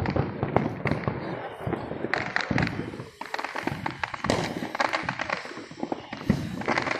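Fireworks going off: many sharp pops and bangs in quick succession.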